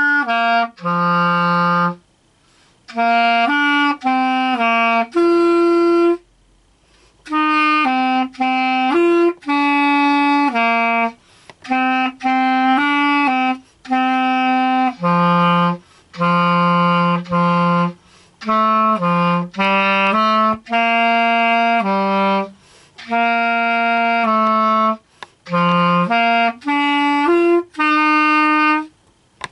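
Unaccompanied clarinet playing a melody, one note at a time, in short phrases broken by brief pauses for breath.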